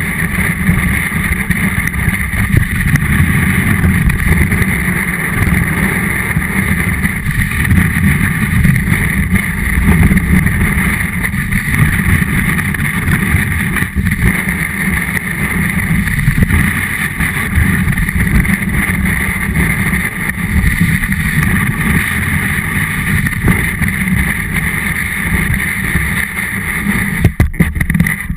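Snowboard running over snow, picked up by a camera mounted on the board: a loud, steady, rough rumble. A few sharp knocks come near the end.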